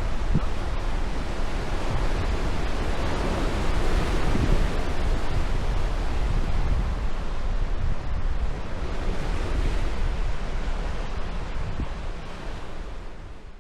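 Sea waves washing onto the beach in a steady surf, swelling and easing, with wind buffeting the microphone as a low rumble. The sound fades out near the end.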